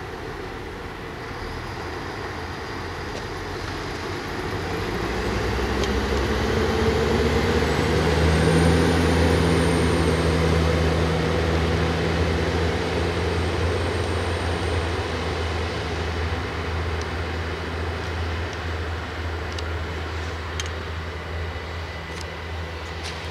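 Alstom Coradia LINT diesel multiple unit pulling away from a station: its diesel engine note rises as it accelerates, is loudest about eight seconds in, then fades steadily as the train draws away. A few sharp clicks come near the end.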